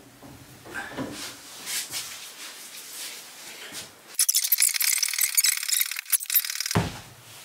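Motorcycle lift table being raised, its mechanism giving a hissing, rapidly clicking sound. It starts about four seconds in, lasts about two and a half seconds and stops abruptly, after a few faint clinks of metal parts being handled.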